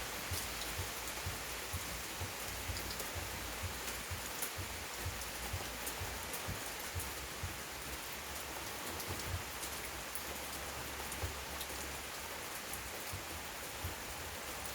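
Heavy rain pouring steadily, a dense hiss with many individual drops pattering and ticking on surfaces.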